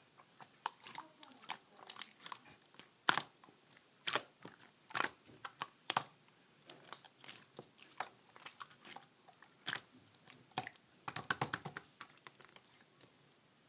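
Crunchy chewing close to the microphone: irregular crisp crunches about once or twice a second, with a quick run of them about eleven seconds in.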